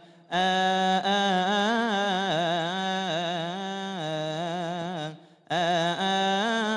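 Male voice chanting a melismatic Coptic Orthodox liturgical hymn in one long, ornamented melodic line. It breaks off briefly for breath at the start and again about five seconds in.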